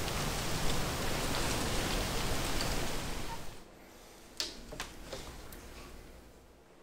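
A steady rushing hiss of outdoor air moving through tree leaves, which cuts off about three and a half seconds in. Then, in a quiet room, a handful of soft clicks and taps as a person moves about and handles plantation window shutters.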